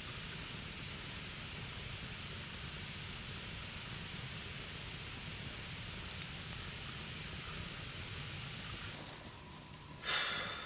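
Wood fire burning with a steady, even hiss. The hiss stops suddenly near the end, and a brief louder noise follows.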